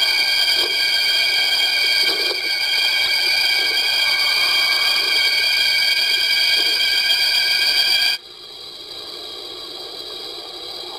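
Steady electronic drone of several high held pitches over a hiss, a cartoon soundtrack effect. It cuts off suddenly about eight seconds in, leaving a fainter hiss.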